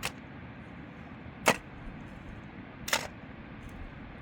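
Sharp knocks repeating evenly about every second and a half, three in all, over a steady background hiss.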